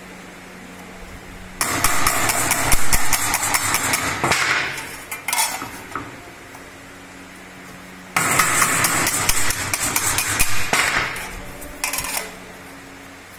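Thin sheet metal being bent and worked along a fold line over a wooden edge, rattling with rapid knocks in two bouts of three to four seconds each. A faint steady hum fills the pauses between the bouts.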